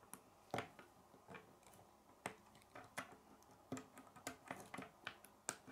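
K'nex plastic rods and connectors clicking as they are snapped together and handled: an irregular series of light clicks.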